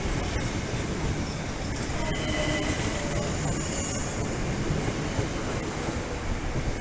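Southeastern Class 375 Electrostar electric multiple unit moving along a station platform: a steady rumble of wheels on rail, with faint high tones coming in for a second or so about two seconds in.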